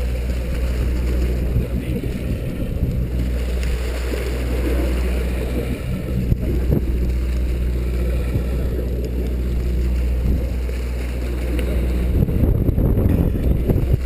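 Boat engine droning steadily, with sea water sloshing against the hull and some wind on the microphone.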